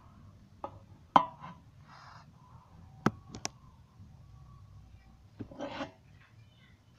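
Handling noise from a phone's microphone rubbing against a cotton T-shirt and skin, with several sharp knocks as the phone is bumped, the loudest about a second in and two more close together near the middle.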